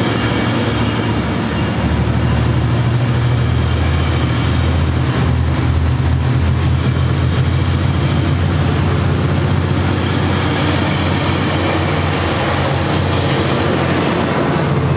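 Metrolink bilevel passenger cars rolling slowly past on the rails, under the steady low drone of the diesel locomotive pushing at the rear of the train.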